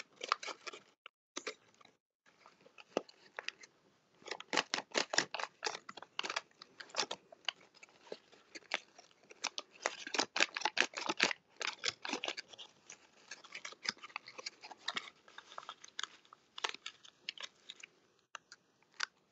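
Folded-paper origami tessellation crinkling and crackling as it is squeezed shut and pulled open by hand, in quick runs of sharp crackles with short pauses, densest through the middle.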